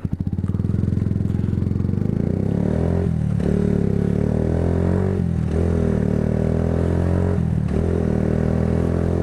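Motorcycle engine pulling away from idle and accelerating, with three short dips in the engine sound a couple of seconds apart as the rider changes up through the gears.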